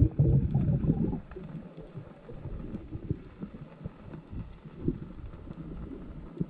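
Muffled underwater sound heard through a submerged camera housing: low sloshing and rumbling water with scattered soft knocks and clicks from the spearfisher moving. It is louder in the first second, then settles to a quieter, irregular rumble.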